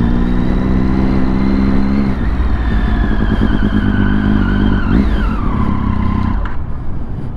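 Triumph Daytona 675 inline three-cylinder engine running at speed with a high whine. The pitch falls as the bike slows, drops steeply about five seconds in, and the engine sound dies away about a second later.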